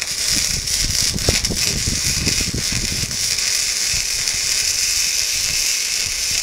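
Electric welding arc crackling and sizzling steadily as a bead is run along a metal plate.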